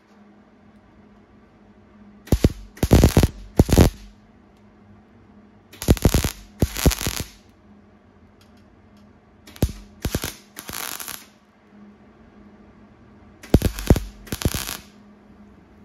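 MIG welder laying short tack welds on thin, old sheet steel: about ten short crackling bursts in groups of two or three, each under a second, with a faint steady hum between. The welds are stitched in as separate dots at a low setting so as not to blow holes in the thin metal.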